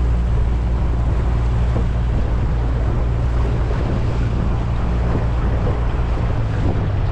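40 hp Yamaha outboard motor running steadily as the small boat cruises, a low even hum under wind rushing over the microphone and water churning past the hull.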